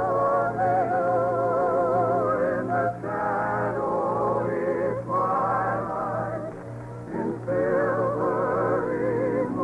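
A singer holds long notes with wide vibrato over orchestral accompaniment, performing a 1922 love song in an old radio broadcast recording.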